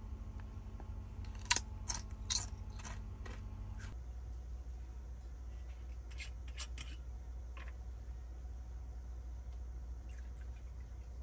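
Potato chips crunching crisply, four sharp crunches in the first few seconds, over a steady low hum; after that a few faint clicks as a glass sake bottle is handled.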